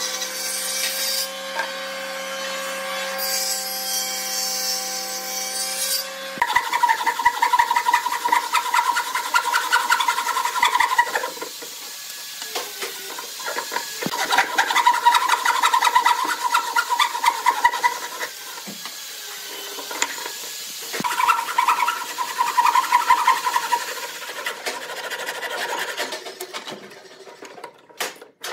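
Table saw running and cutting a hardwood board for about the first six seconds, then stopping abruptly. After that, a hand tool works a pine block in fast back-and-forth scraping strokes, in several bursts separated by short pauses.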